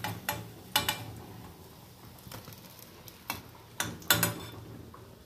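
Steel ladle clinking and scraping against a steel kadhai while lifting fried moong-urad dal vadas out of hot oil, with a few sharp clinks, the loudest about four seconds in. The frying oil sizzles faintly between them.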